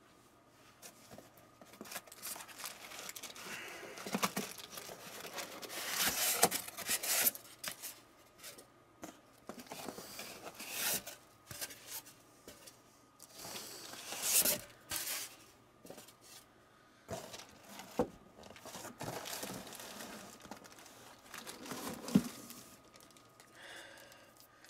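Packing wrap and tape being torn and crumpled off by hand, in irregular rustling bursts with a few louder rips.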